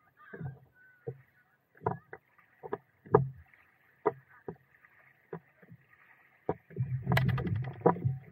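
Small waves slapping and knocking against the hull of a stand-up paddle board, in irregular knocks about once a second, with a louder run of splashing and knocks near the end.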